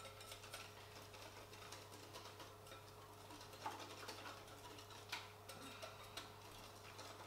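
Faint rapid clicking and scraping of a small whisk against a glass bowl as a thin batter of glutinous rice flour, sugar and water is stirred, with a few louder taps. A steady low hum sits underneath.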